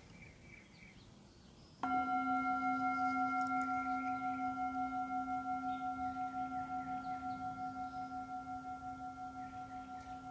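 A singing bowl struck once, about two seconds in, then left to ring. It holds several steady tones with a pulsing waver and fades slowly.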